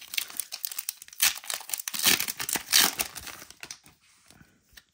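Pokémon TCG booster pack wrapper being torn open and crinkled: a dense, crackly run of tearing and rustling that dies down after about three and a half seconds, leaving faint handling noise.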